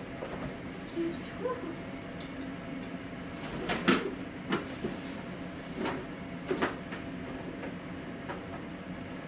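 A few sharp knocks and clicks of kitchen cupboard doors and items being handled, the loudest about four seconds in, over a steady low hum.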